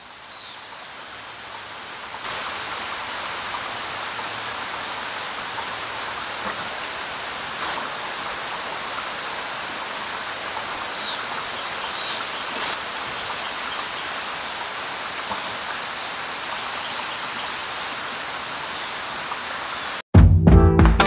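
Steady rushing water noise, like rain, fading in over the first couple of seconds and then holding even, with a few faint bird chirps around the middle. Music with brass cuts in abruptly just before the end.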